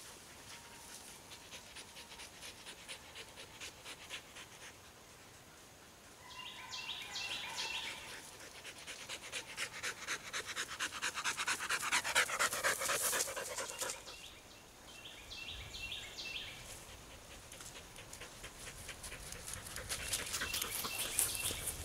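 A hunting dog panting rapidly and heavily close by, the panting loudest about twelve seconds in. Three short bursts of high-pitched calls come and go over it.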